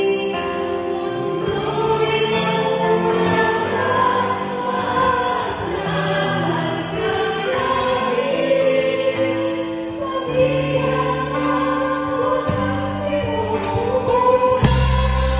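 Church choir singing a gospel worship song in long held notes over a band's bass line. Near the end a drum kit comes in with a heavy bass-drum hit and strikes.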